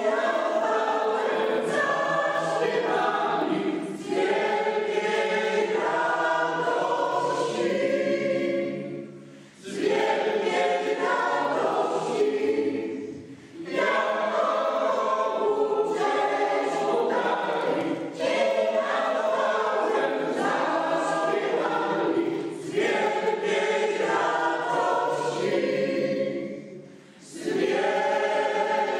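Choir singing, its phrases broken by three short pauses.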